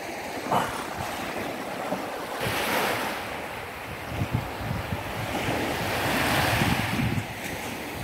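Small waves washing up onto a sandy beach and drawing back, one wash rising about two and a half seconds in and a longer one around six seconds, with wind buffeting the microphone.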